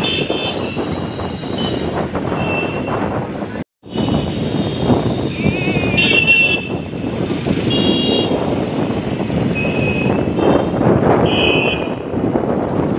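Busy street traffic heard from a moving car: a steady rush of engines and road noise, with short, high vehicle horn toots sounding again and again. The sound drops out for a moment about four seconds in.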